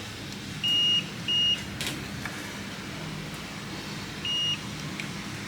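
Multimeter continuity beeper giving three short, high, steady beeps, two close together about a second in and one near the end, as the probes are touched to points on the logic board while checking for a short circuit.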